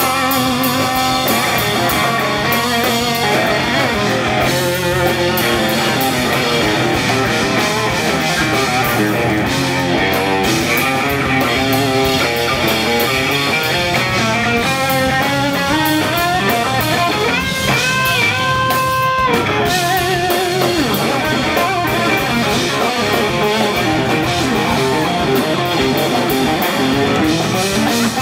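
Live funk-rock band playing loudly, with the electric guitar carrying the lead over drum kit and bass; a few long held, wavering guitar notes come about two-thirds of the way in.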